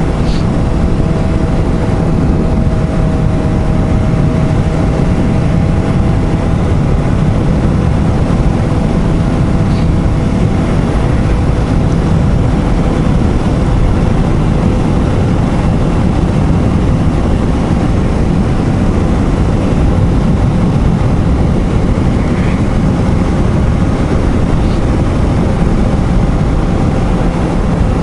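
Motorcycle engine running at a steady cruising speed, its note held nearly constant, under a steady rush of wind.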